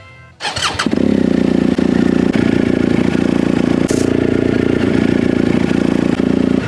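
BMW R1250GS boxer-twin engine starting about half a second in and then idling steadily through its Remus 8 aftermarket exhaust, cutting off near the end.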